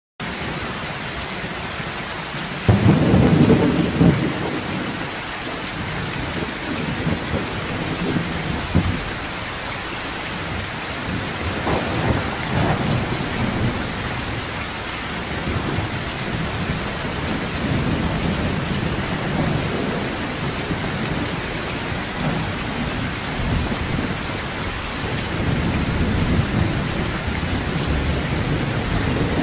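Heavy rain falling steadily on a sheet-metal roof, with thunder. A loud thunderclap starts suddenly about three seconds in, and several softer rolls of thunder rumble through after it.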